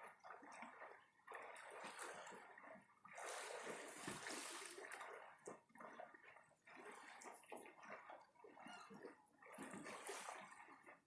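Faint small sea waves washing and lapping on the shore in irregular surges, the strongest wash a few seconds in.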